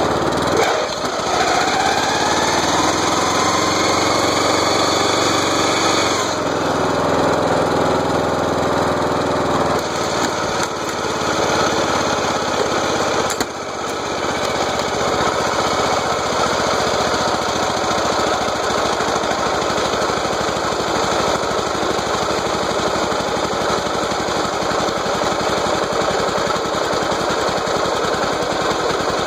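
Riding mower's small engine running, its pitch rising over the first few seconds as it picks up speed. It then runs on steadily with a rapid rattling clatter from the mower's misaligned gears.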